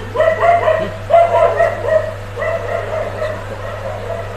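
Dog barking repeatedly in short, yelping barks, loudest over the first two seconds and then carrying on more softly, over a steady low hum.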